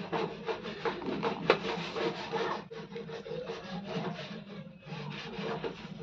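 Irregular scratchy rubbing and rustling from hands handling and twisting hookup wires onto a voltage regulator's legs close to the microphone, over a low steady hum.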